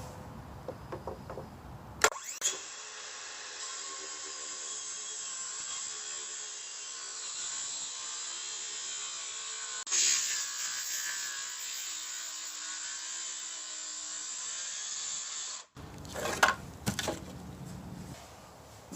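A saw cutting through a thick 2x12 wooden board: a steady, unbroken cutting hiss of about thirteen seconds that grows louder about ten seconds in and stops suddenly. Sharp wooden knocks come just before it starts and just after it ends.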